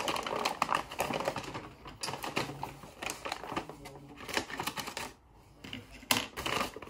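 Plastic Priority Mail mailer being handled and cut open with scissors: crinkling and rustling with many small rapid clicks, dropping to a brief lull about five seconds in before a sharp click.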